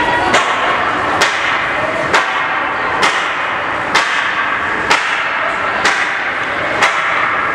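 A sharp impact repeated eight times at an even pace of a little under one a second, over a steady background din.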